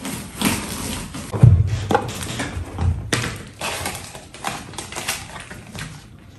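Handling of a cardboard fold-out gift box: rustling and tapping as its lid comes off and its paper panels are opened out, with a low thump about a second and a half in and another near three seconds.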